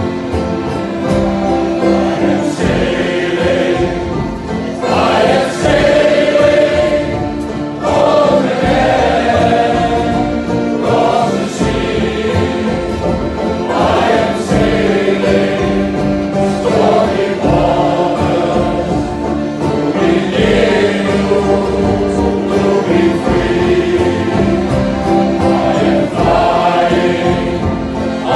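Male shanty choir singing a sea shanty together, voices holding sustained notes in chorus.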